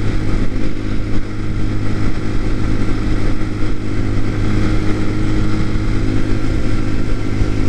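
TaoTao TBR7 motorcycle engine running steadily while cruising at a constant speed, its pitch holding level.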